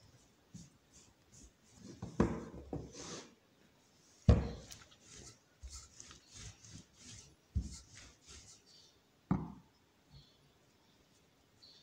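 A wooden kürtőskalács spit wrapped in raw dough knocking and rubbing against a wooden table as it is handled and rolled back and forth to press the dough on. Several thuds, the loudest about four seconds in, with a run of short rubbing strokes after it.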